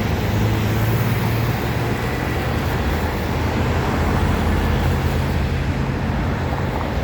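Steady road traffic noise, with the low hum of vehicle engines and no distinct pass-by.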